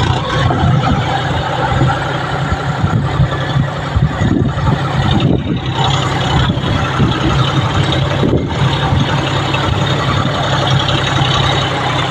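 John Deere tractor's diesel engine running steadily under load as it pulls a two-bottom mouldboard plough through the soil.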